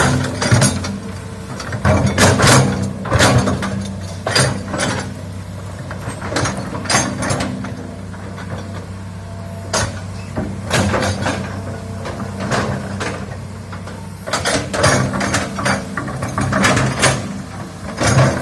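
Hitachi hydraulic excavator working: its diesel engine running steadily under many irregular sharp clanks and knocks from the machine at work.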